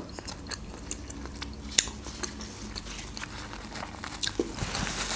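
A person chewing a green olive close to the microphone: scattered soft clicks from the mouth. Near the end, a paper napkin is rubbed across the mouth.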